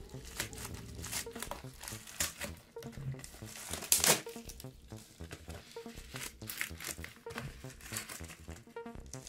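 Plastic shipping packaging crinkling and tearing as it is pulled open by hand: a run of short crackles, with one loud rip about four seconds in.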